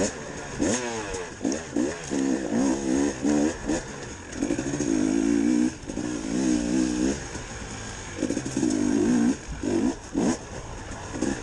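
2019 KTM 300 XC-W TPI two-stroke dirt bike engine under hard riding, revving up in repeated bursts of throttle and backing off between them, its pitch sweeping up on each pull.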